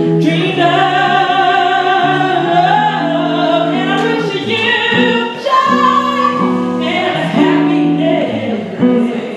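Music: a song with a singing voice holding long notes over an accompaniment of sustained low notes.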